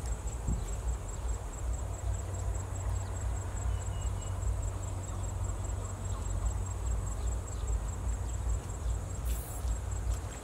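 Wind rumbling on the microphone, steady and gusting, over a faint steady high tone of insects.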